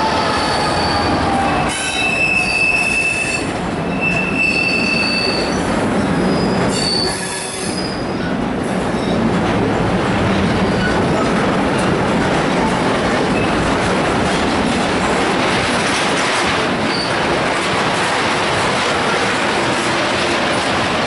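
A Class 66 diesel locomotive's two-stroke engine passes, its note falling, followed by a long rake of loaded car-carrier wagons rolling by with a steady rumble of wheels on rail. High-pitched wheel squeals come and go over the first several seconds.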